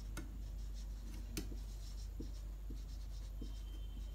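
Marker pen writing on a whiteboard: a string of short, faint squeaks and scratches as the tip strokes across the board, with a couple of sharp ticks. A steady low hum runs underneath.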